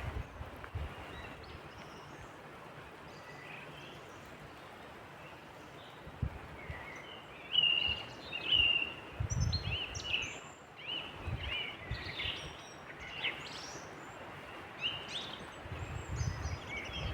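Songbirds singing in the early-morning dawn chorus: many short chirps and whistled phrases, starting about a third of the way in and becoming busier. Several low rumbles come and go underneath.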